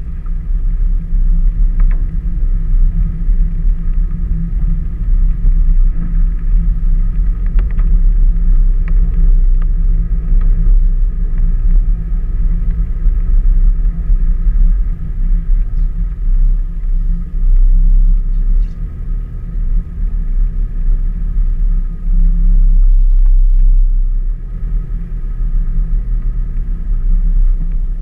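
A vehicle driving slowly along a wet gravel road: a steady low rumble of engine and tyres.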